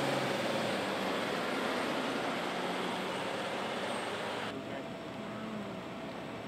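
Idling emergency vehicles on a roadside: a steady engine hum under a hiss of traffic noise. About four and a half seconds in, the sound changes abruptly, the hiss thinning and a steady hum tone taking over.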